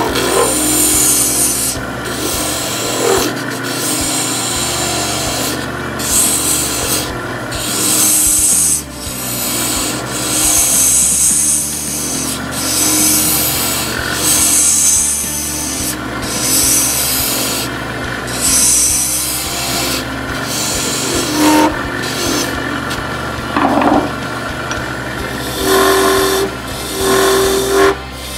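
Small lathe spinning an acrylic duck call insert blank while a hand-held turning tool cuts it: a rasping scrape in repeated passes of a second or two, over the steady hum of the running lathe.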